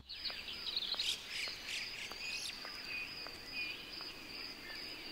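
Garden ambience: a steady high insect trill with birds chirping over it, and soft regular footsteps of two people walking on a path.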